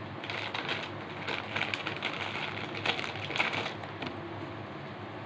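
Clear plastic wrapper crinkling and rustling as a wristwatch is pulled out of it, a run of irregular crackles that dies down about four seconds in.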